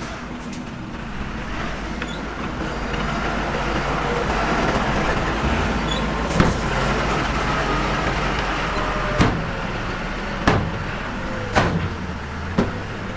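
Diesel engine of heavy earthmoving machinery running steadily, swelling a little partway through, with five sharp metallic clanks in the second half.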